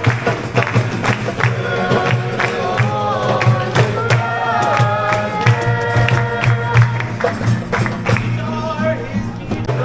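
Music: a song with singing over a steady percussion beat.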